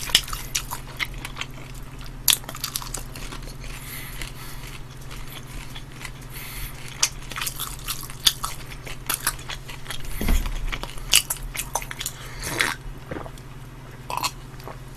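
Close-miked chewing and biting into bone-in fried chicken, with many irregular crunchy clicks, over a steady low hum.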